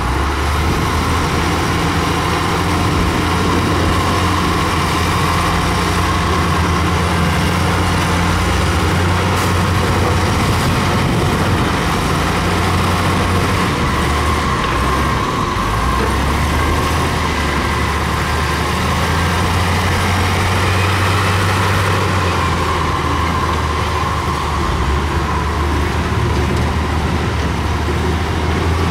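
Diesel engine of heavy earthmoving machinery running steadily: a continuous low drone with a fainter steady whine above it.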